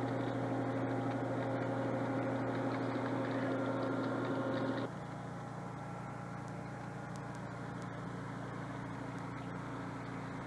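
HO-scale model diesel locomotive running, a steady engine-like drone over a low hum. About five seconds in it drops abruptly to a quieter hum.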